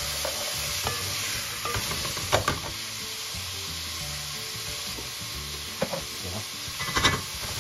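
Sliced onions, garlic and ginger sizzling in hot oil in a metal pot, stirred with a wooden spoon. The stirring gives a few sharp knocks, the loudest near the end.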